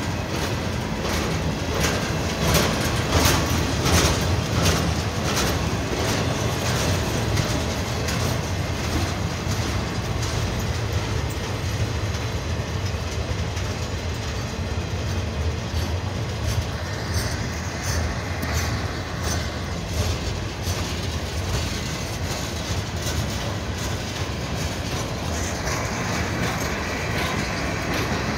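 Freight cars of a CSX manifest train rolling past close by: a steady rolling noise with repeated sharp wheel clicks over the rail, densest in the first few seconds.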